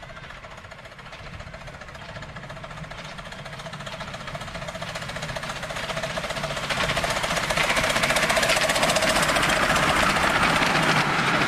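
Miniature railway locomotive hauling a passenger train, coming closer and passing: a fast, even mechanical beat with wheel noise, growing steadily louder and loudest near the end.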